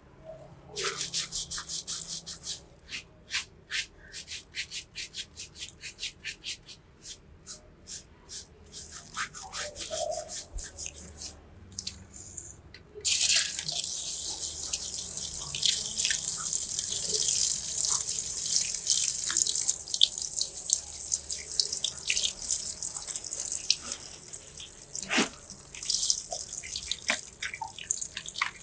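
Fingers scrubbing a shampoo-lathered scalp, giving irregular crackling and squishing of the foam. About thirteen seconds in, a handheld shower sprayer comes on and water hisses steadily over the hair and into the basin as the shampoo is rinsed out.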